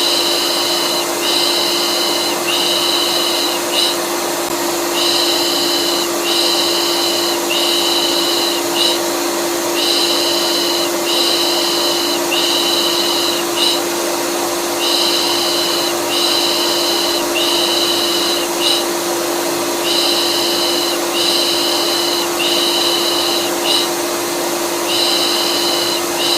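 Vacuum cleaner running with a steady hum, overlaid by a repeated 'pış pış' shushing of the kind used to calm colicky babies. The shushing comes as three long hisses and a short one, repeating about every five seconds.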